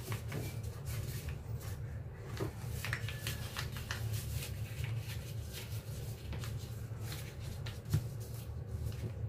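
A sheet of paper being folded and creased by hand on a wooden table: scattered crinkling and rustling over a steady low background hum, with one soft thump near the end.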